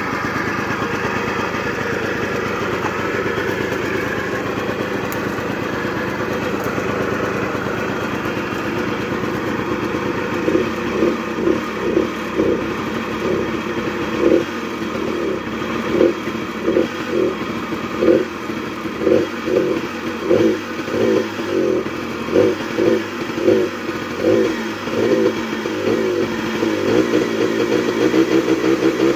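Small engine of a Honda Gyro three-wheeled scooter running, at first at a steady idle, then revved in short, quick throttle blips over and over from about a third of the way in, settling into steadier higher revs near the end.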